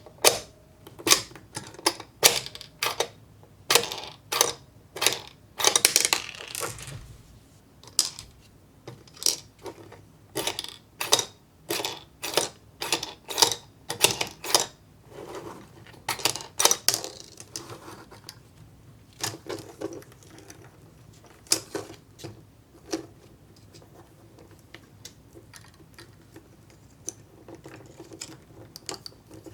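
Small hard pieces clicking and clattering on plastic: ramune candies and the plastic parts of a candy kit handled and moved about. The sharp clicks come about twice a second at first, then grow fewer and softer after about 18 seconds.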